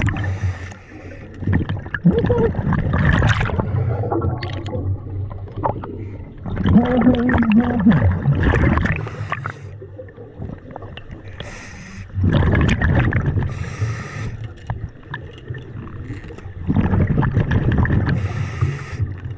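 Scuba diver breathing through a regulator underwater: gurgling, rumbling rushes of exhaled bubbles come about every four to five seconds, with short hisses of inhaled air between them.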